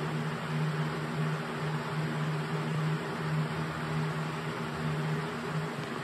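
House To Home 20-inch box fan running steadily: an even rush of air over a low motor hum that swells and fades about once a second.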